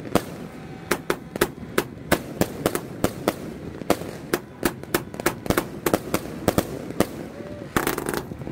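A 100-shot fireworks cake firing, its shells bursting in sharp bangs several times a second, irregular and overlapping. Near the end the reports come thicker and run together.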